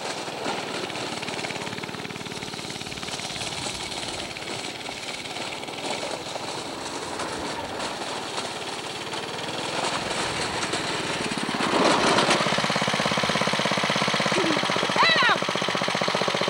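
Go-kart's small engine running with a fast, rapid pulsing, louder from about twelve seconds in as the kart comes close.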